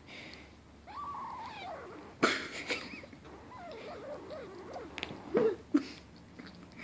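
Kitten crying while it eats: one long call that rises and falls about a second in, then a string of short wavering cries, with a few sharp clicks.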